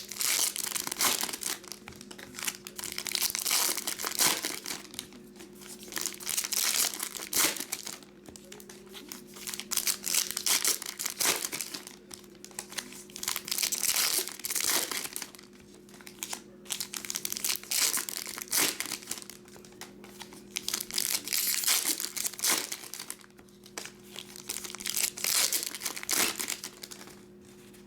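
Plastic wrapping on trading-card packs crinkling and tearing as it is opened and handled, in repeated bursts every few seconds.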